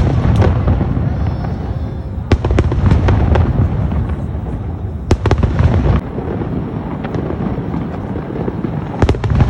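Aerial fireworks shells bursting: deep rolling booms under clusters of sharp cracks, which come in bunches at the start, about two and a half seconds in, about five seconds in and near the end.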